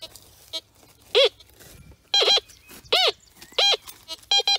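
Tianxun TX-850 metal detector sounding a series of short target tones as its coil sweeps back and forth over a buried object, several of them bending up and then down in pitch, coming faster near the end. The tones mark a non-ferrous target that the detector reads as 50.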